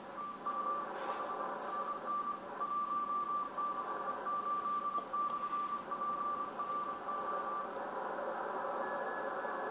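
Morse code (CW) heard through a Yaesu FTDX1200 transceiver on the 80-metre band: a single keyed tone of dots and dashes over steady band hiss, a contest station sending 'TEST' and its callsign. The tone stops about three-quarters of the way through, and a fainter, higher-pitched keyed signal starts near the end.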